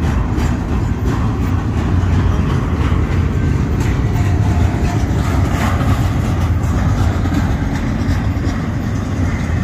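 BNSF double-stack intermodal well cars rolling past close by: a steady, loud rumble and clatter of steel wheels on rail.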